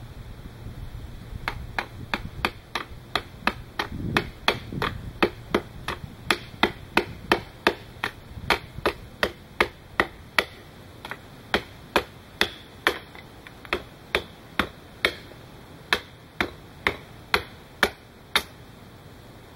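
Hatchet blade chopping into a thin wooden slat held upright on a stump, hewing it down. A steady run of sharp strikes, about two or three a second, starts about a second and a half in and stops shortly before the end.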